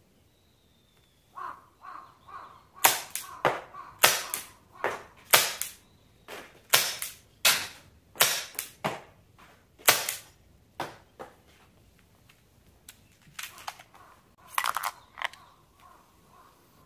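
Marushin M10 Military & Police gas revolver firing a rapid string of shots, sharp cracks roughly every half second to second over about eight seconds. A few softer knocks come before the string, and a cluster of lighter clicks comes near the end.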